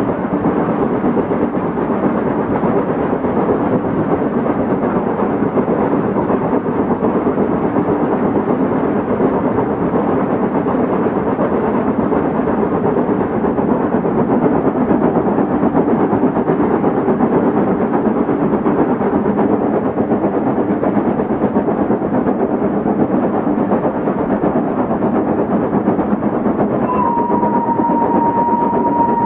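A train running steadily, a continuous rumbling rail sound with no pauses. Near the end a steady, single-pitched whistle-like tone starts and holds.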